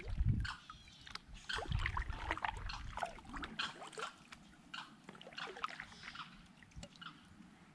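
Kayak paddle dipping into river water, with water dripping and trickling off the blades in many small, scattered drops.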